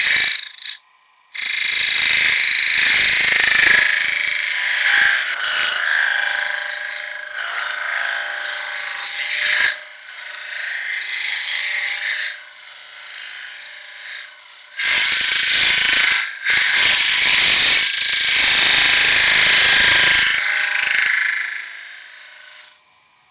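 A turning tool cutting into a spinning wooden workpiece on a wood lathe: a loud hissing scrape in long passes broken by short pauses, over the lathe's faint steady hum, fading away near the end.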